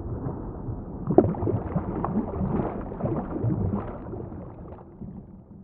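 Water sloshing and bubbling heard from a camera held under the surface, muffled and dull, with a run of uneven splashy knocks in the middle as a hand moves a fish through the water. It fades out near the end.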